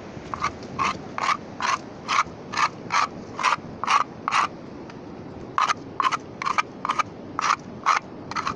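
Rhythmic scraping strokes, about two or three a second, with a pause of about a second halfway through: the worm-bearing seaweed mat being scraped off a shore rock into a plastic sieve.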